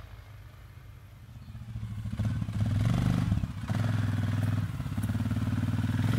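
An engine running and growing louder from about two seconds in, with a low even pulsing hum.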